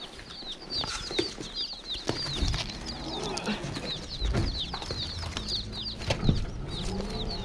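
Baby chicks peeping inside a cardboard shipping box: a continuous run of short, high, downward-sliding chirps, several a second. Knocks and rustles of the box being carried are mixed in, with a low rumble from about two seconds in.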